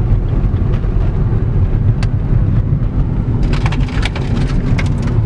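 Steady low rumble of road noise inside a moving car, with a few faint light rattles a little past halfway.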